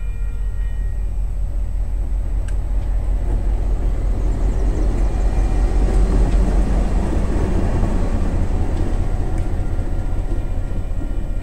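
TasRail DQ class diesel-electric locomotive running light past a level crossing: its diesel engine rumbles as it approaches, is loudest as it passes close by about six seconds in, then eases off as it moves away.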